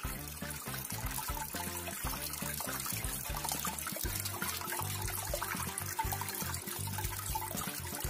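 Water trickling and splashing as it spills down the tiers of a small tabletop waterfall fountain, with background music playing over it.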